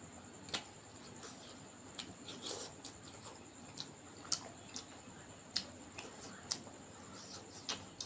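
Close-miked eating sounds: wet chewing and lip smacks, heard as sharp irregular clicks about once or twice a second, over a faint steady high whine.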